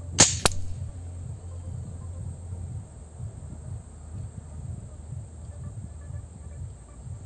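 A pre-charged pneumatic air rifle with a moderator fires one shot: a sharp crack, with a second crack about a quarter second later.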